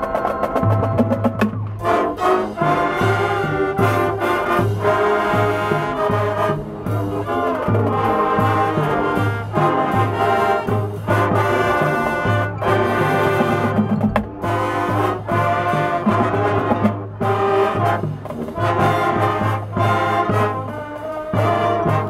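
Marching band playing live: brass section with trumpets and trombones over percussion, a low bass note pulsing steadily underneath and several sharp full-band accents.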